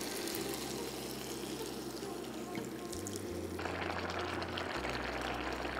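Chicken broth being poured into a hot pan of freekeh and chicken, then bubbling in the pan, with a change in the sound partway through.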